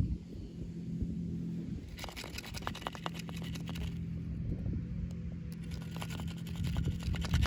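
Plastic and cardboard toy packaging being handled, crinkling and scratching in two spells of rapid crackles, over a steady low hum.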